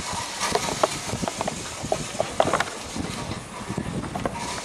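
Scattered small clicks and rustles as a cable plug is handled and pushed into the socket of a portable ultrasound scanner, over a steady outdoor background hiss.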